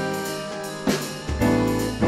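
Instrumental background music with a steady drum beat under sustained chords.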